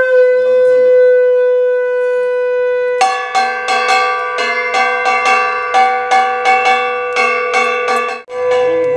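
Conch shell (shankh) blown in one long steady note, breaking off briefly near the end and sounding again. From about three seconds in, a hand bell is rung rapidly alongside it, about three strikes a second.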